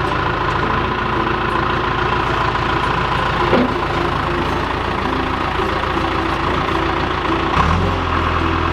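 Backhoe's diesel engine running steadily, with a couple of brief clunks; the engine note changes near the end.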